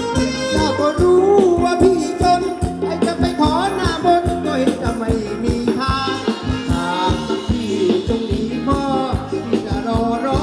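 Live Thai ramwong dance music from a band, played loud with a steady drum beat under a melody.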